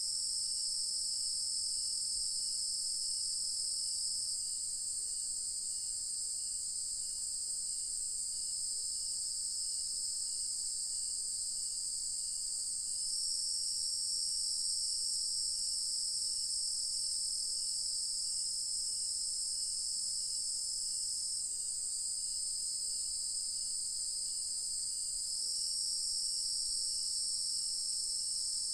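Dense, steady high-pitched chorus of night insects at dusk, swelling and easing slightly a few times. Beneath it is a fainter, regular chirp, a little under two a second.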